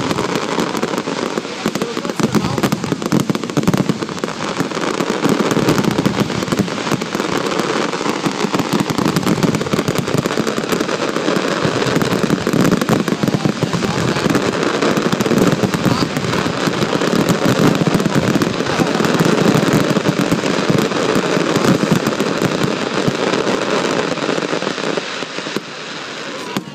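Fireworks display going off in a dense barrage: a continuous crackling and banging of many shells bursting close together, easing off near the end.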